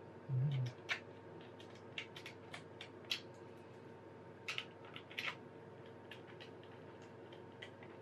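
Small screwdriver driving screws into a plastic laptop base: scattered light clicks and ticks as the bit turns and the screws are handled. A brief low thump about half a second in is the loudest sound.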